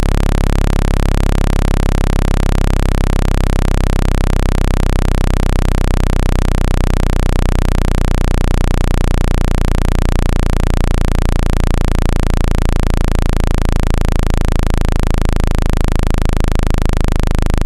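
Synthesized speaker-cleaning tone: a loud, steady, deep buzz played through a phone speaker to shake water and dust out of it.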